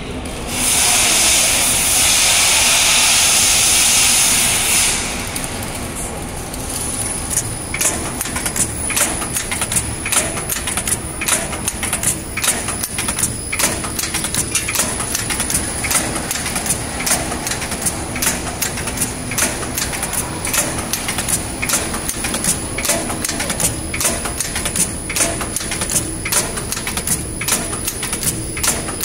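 Automatic shoelace tipping machine: a loud hiss for about four seconds, then the machine cycling with rapid, evenly repeated mechanical clicks and clacks, about two to three a second, over a faint steady high whine.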